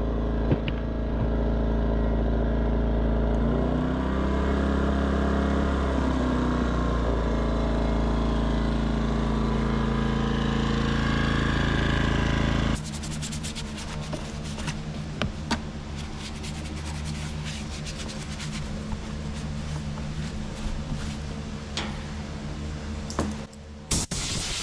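Westinghouse iGen2500 inverter generator engine running steadily after its carburetor was cleaned, no longer surging: it doesn't miss a beat. Its speed rises and falls once about four seconds in, and about halfway through the sound abruptly drops to a quieter, lower running with scattered clicks.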